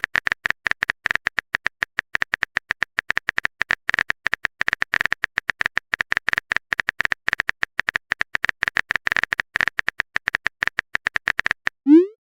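Phone keyboard typing sound effect: rapid, irregular clicks, several a second, as a text message is typed out. The clicking stops near the end and a short rising swoop follows, like a message being sent.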